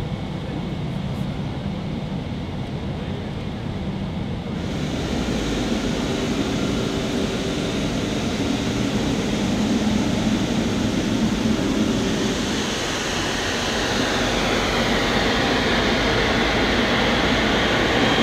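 Steady low drone of an airliner cabin in flight. About four and a half seconds in it changes abruptly to louder jet engine noise out on an airport apron, with a high turbine whine that slides in pitch in the second half.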